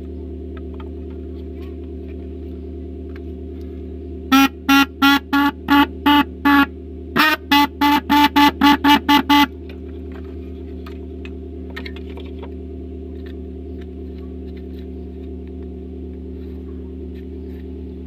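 Snail-type (keong) car horn sounding in short honks, about seven, then after a brief pause about a dozen quicker ones, as its adjusting screw is set. It is a horn that had died completely, now sounding again after being serviced with an added gasket. A steady low hum runs underneath.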